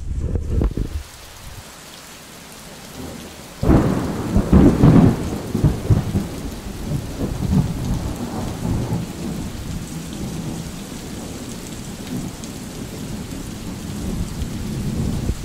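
Thunderstorm: a clap of thunder breaks in about four seconds in and rumbles on, fading over several seconds, over steady falling rain.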